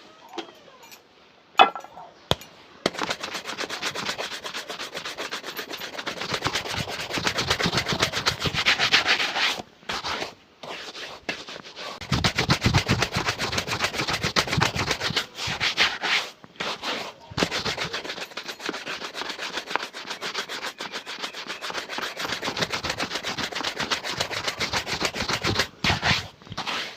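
A shoe being buffed with fast back-and-forth rubbing strokes, a dense steady run that starts about three seconds in and pauses briefly a few times. A few separate taps come before it.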